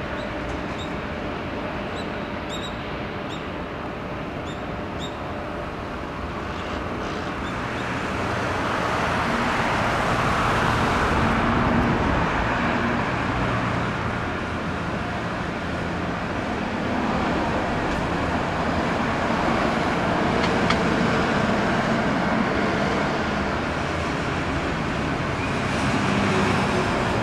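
Road traffic passing near the microphone: a steady rush of vehicle noise that swells about eight seconds in and again around twenty seconds in as vehicles go by. There are faint short high chirps in the first few seconds.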